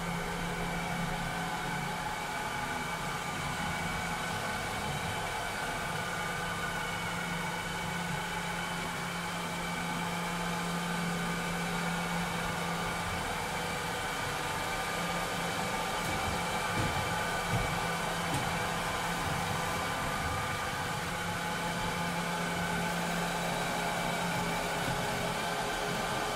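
Vileda robotic vacuum cleaner running: a steady whir of its fan and motors, with a low hum that comes and goes and a few light knocks about two-thirds of the way through.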